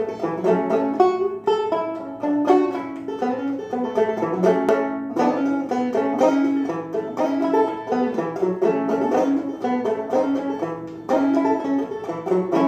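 Five-string banjo played clawhammer style: a quick, steady run of plucked notes over a repeating drone note.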